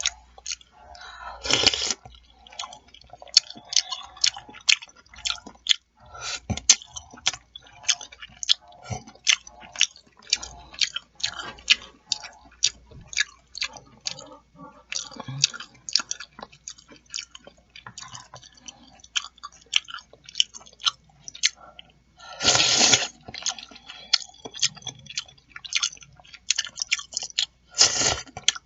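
Close-miked mouth sounds of eating chicken noodle soup: fast wet chewing and smacking clicks, with three louder, longer slurping sounds, about two seconds in, about 23 seconds in and near the end.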